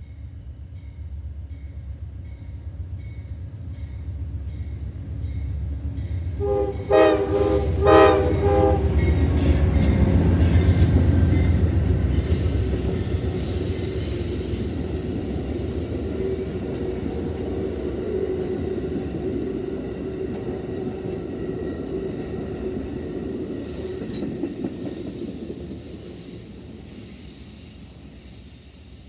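Railroad crossing bell ringing about twice a second as an Amtrak passenger train approaches. The locomotive horn sounds two short blasts about seven seconds in, then the train passes at speed with a steady rumble and rail noise that slowly fades near the end.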